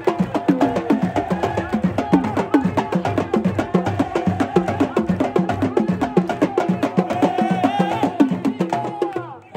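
Supporters' drums beaten in a fast, steady rhythm under a sung crowd chant, breaking off just before the end.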